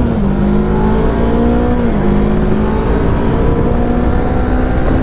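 Voge 500R's parallel-twin engine heard from the rider's seat, accelerating hard with the pitch rising, dipping as it shifts up a gear just after the start and again about two seconds in, then climbing again. Wind rushes over the microphone underneath.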